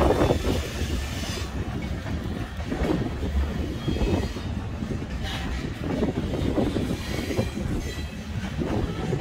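Centerbeam flatcars loaded with lumber rolling past on a Norfolk Southern freight train: a steady rumble of steel wheels on rail, with a run of irregular knocks as the wheels go over the track.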